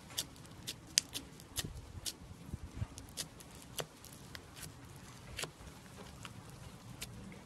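Foam slime being worked by hand, giving irregular crisp pops and crackles, two or three a second, with a few soft low squishes about two seconds in.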